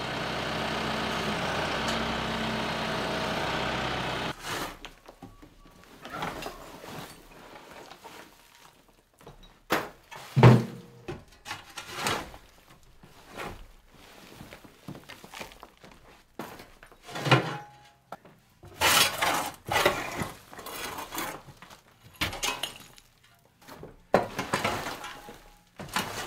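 A TYM compact tractor's engine running steadily for about four seconds, then cut off abruptly. After that, a shovel scraping across wooden floorboards and scooping broken flooring and rubble, with scattered thuds and clatters, the loudest about ten seconds in and many more close together in the last third.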